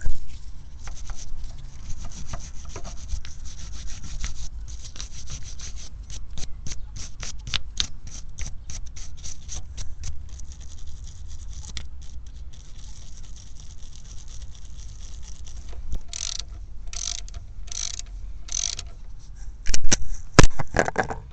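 Brush scrubbing loose dirt off the outside of a motorcycle front brake caliper in quick repeated strokes, with a few louder strokes and knocks near the end.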